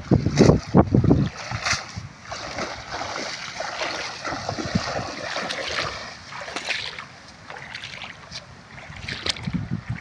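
Water splashing and sloshing, with wind buffeting the microphone in strong low gusts during the first second or so.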